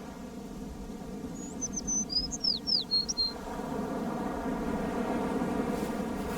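A small songbird sings one short phrase of quick, high whistled notes and downward slurs, starting about a second in, over a steady low background.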